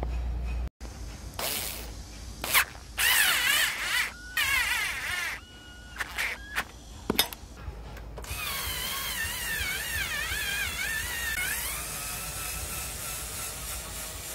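Bosch cordless drill-driver whining in several short bursts, its pitch wavering up and down, then running longer from about eight seconds in and settling to a steadier tone, as it drives the engine guard's mounting bolts.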